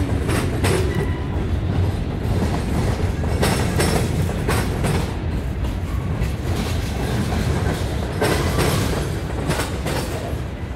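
Freight cars (covered hoppers and centerbeam flatcars) rolling past close by: a steady rumble of steel wheels on rail, broken by irregular sharp clacks from the wheels, several of them in quick pairs.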